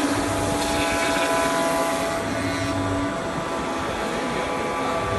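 SG2540T-3S CNC router at work milling a wooden pattern: a steady spindle whine with several held tones over a mechanical hum, the lowest tone dropping out about three seconds in.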